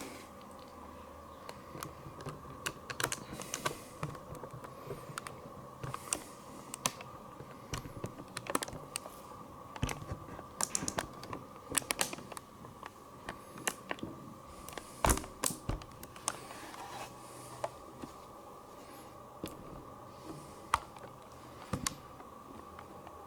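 Irregular light clicks and taps, with a few sharper knocks, from hands handling small objects, over a steady faint electrical hum.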